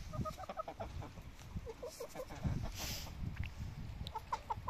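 Italian-breed chickens clucking: three runs of short, quick calls, at the start, about two seconds in and near the end, with a brief rustle about three seconds in.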